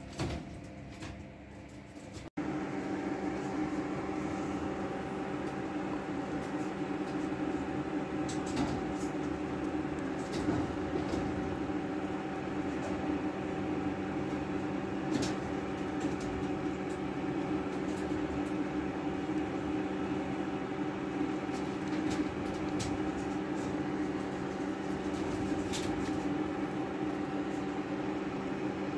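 A steady mechanical hum with a few fixed tones and scattered light clicks. It sets in suddenly about two seconds in.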